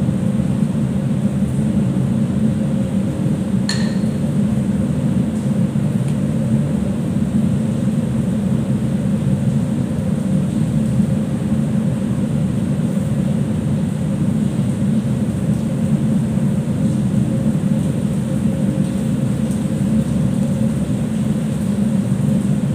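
Steady low drone of a ship's machinery and ventilation, with a constant hum running through it. One short sharp click sounds a few seconds in.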